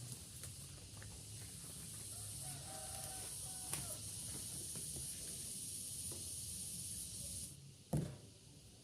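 A chicken calls briefly a few seconds in, over a steady high hiss that cuts off suddenly near the end. A single sharp knock follows.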